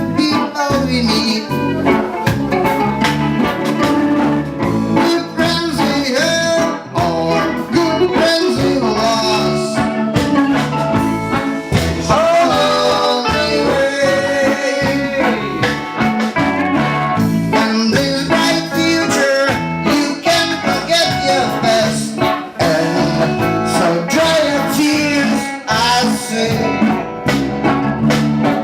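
A reggae band playing live: guitar over a repeating bass line, with a voice singing.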